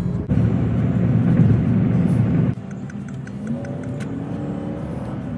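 Road and engine noise inside a moving car. It is loud at first and drops off abruptly about two and a half seconds in, leaving a quieter engine hum whose pitch rises as the car gathers speed.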